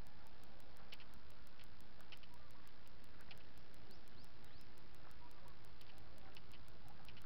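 Rustling and handling noise on a body-worn action camera's microphone while walking, with a fast, even high ticking of about five a second and faint short chirps about once a second.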